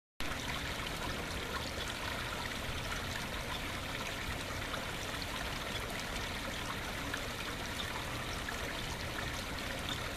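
Small waterfall trickling over rocks into a backyard pond, a steady splashing of falling water.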